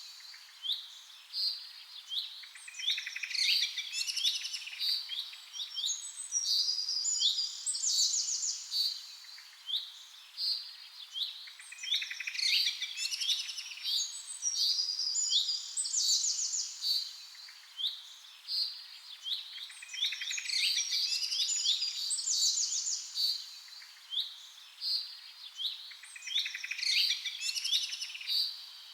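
Songbirds chirping and trilling in a dense chorus, in a pattern that comes round again about every eight seconds.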